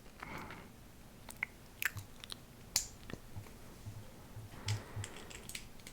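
Small plastic Lego pieces being handled and pressed together: faint, scattered sharp clicks with light rustling in between.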